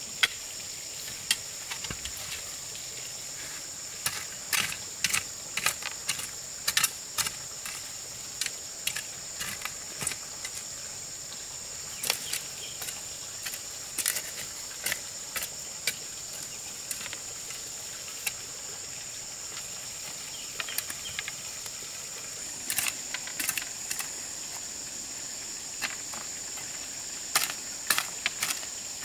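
A hoe chopping and scraping into weedy soil in irregular clusters of short strikes. Under it runs a steady high-pitched insect drone.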